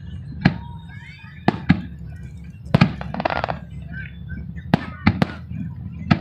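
Aerial fireworks exploding in a string of sharp bangs, about eight in six seconds, some in quick pairs, over a steady low rumble.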